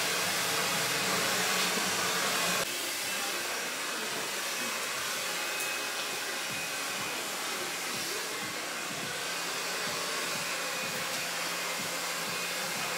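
Handheld salon hair dryer blowing steadily while drying hair. About three seconds in, the sound drops suddenly to a quieter level, then runs on steadily.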